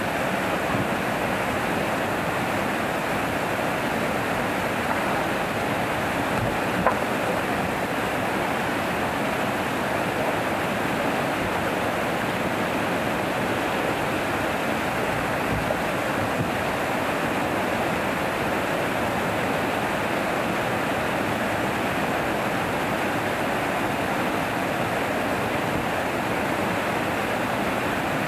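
Water pouring over a small river weir and churning in the whitewater below: a steady, unbroken rush. A single short knock sounds about seven seconds in.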